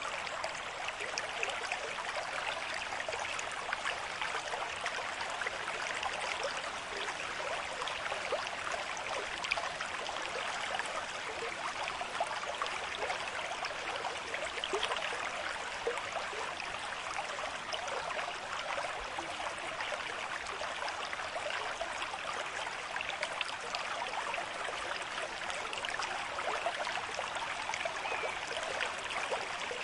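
River stream at a moderate flow, water rushing and burbling over rocks in a steady, even wash with fine splashy flickers.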